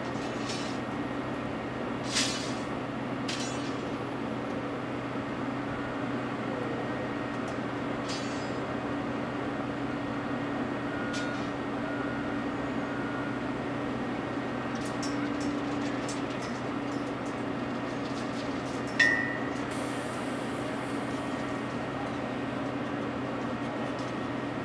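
Diesel engines of Cat hydraulic excavators running steadily at work, with scattered sharp knocks and clanks from the digging and loading. The loudest clank, about 19 s in, rings briefly.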